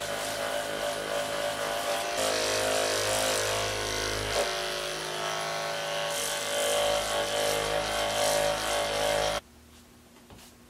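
A small electric motor running steadily with a buzzing hum, shifting slightly in pitch a few times, then cutting off abruptly near the end.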